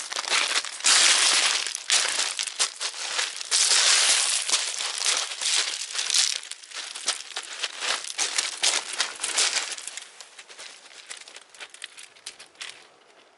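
Rapid crinkling and crunching of something dry being crumpled. It is heaviest for the first ten seconds and thins out near the end.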